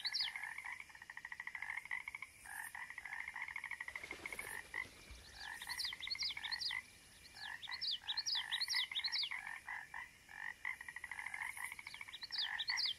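A chorus of frogs calling: rapid trills overlapping with quick rising chirps, coming in bursts every few seconds.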